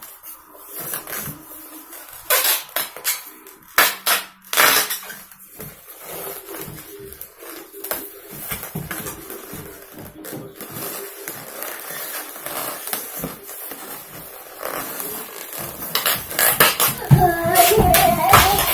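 Clinks and knocks of dishes and cutlery, some of them sharp, with voices near the end.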